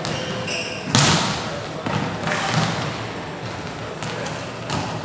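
Volleyballs being struck by hands and bouncing on a sports-hall floor: sharp smacks that echo around the hall, the loudest about a second in, with a few more later. Players' voices call out between the hits.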